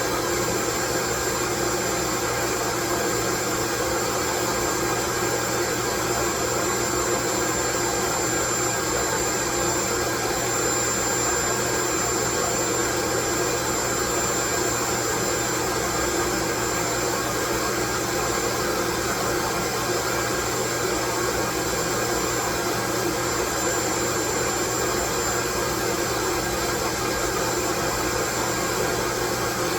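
Steady, unchanging white noise with a thin high tone running through it.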